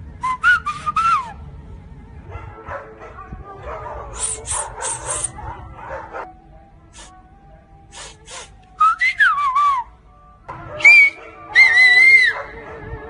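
Several bursts of high whistles gliding and warbling up and down in pitch, with a long falling glide about nine seconds in and the loudest calls near the end.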